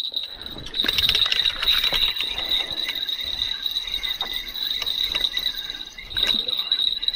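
Steady high-pitched chirring of an insect such as a cricket, with a run of quick clicks and rattles about a second in and a few more near the end.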